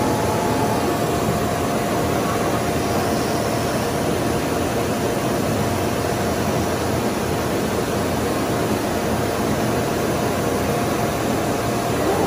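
Industrial plastics-processing machinery running steadily: an even mechanical noise with a faint steady whine.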